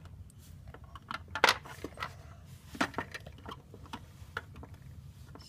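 Small plastic clicks and knocks as Playmobil figures are handled and pushed into a plastic toy bunk bed, irregular, with the loudest knock about one and a half seconds in.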